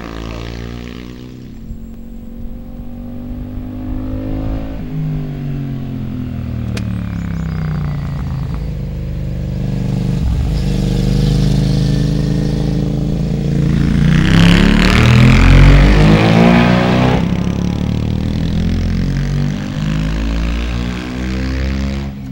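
Two motorcycles, a Suzuki SV650 V-twin and a Honda CBR125 single, riding a hairpin bend. One pulls away while the other approaches with its engine note climbing, passes loudest about two thirds of the way through, then drops in pitch as it climbs away.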